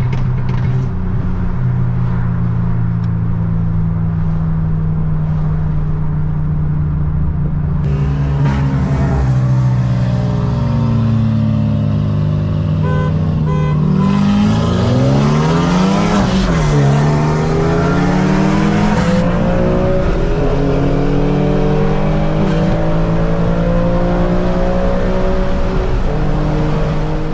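Infiniti G37's 3.7-litre V6 heard from inside the cabin, running steadily at first, then pulled hard at full throttle from about eight seconds in. Its pitch climbs, drops briefly at each gear change, and climbs again.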